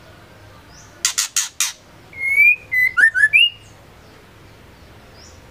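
Female white-rumped shama calling: four harsh, scratchy notes about a second in, followed by a short phrase of clear whistles and quick slurred notes.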